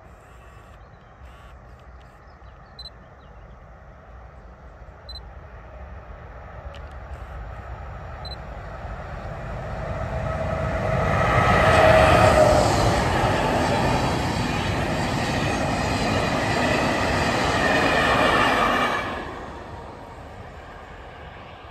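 Freight train wagons rolling past on the rails. The wheel noise builds to a loud, steady rumble and clatter, then falls away sharply near the end as the last wagons go by.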